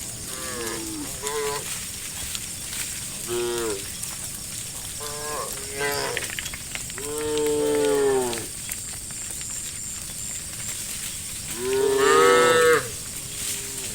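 Cattle in a herd mooing: a string of separate calls, some short and some drawn out, with a long moo about seven seconds in and the loudest one about twelve seconds in. A steady high hiss runs beneath them.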